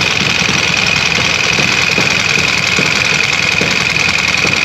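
An old engine running steadily and loudly, with a constant high whine over a rough, busy low rumble.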